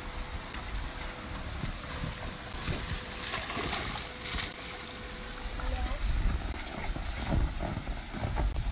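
Water splashing in a shallow inflatable pool at the foot of an inflatable water slide, with children's voices and a constant low rumble of wind on the microphone.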